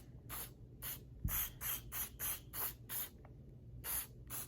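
Barricade CLP gun cleaner being sprayed onto a stainless revolver in about a dozen short spritzes, each a brief hiss, to soak it before wiping. A soft knock comes a little over a second in.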